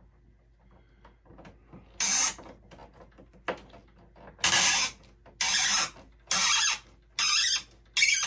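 A screwdriver working a tight screw on the ground bar of a new electrical panel: after a quiet start, about six short, high-pitched scraping strokes, roughly one a second, beginning about two seconds in.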